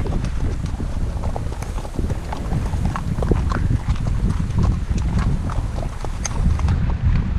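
Icelandic horse's hooves clip-clopping on a dirt-and-gravel track, many short hoofbeats throughout, over a steady low rumble of wind on the microphone.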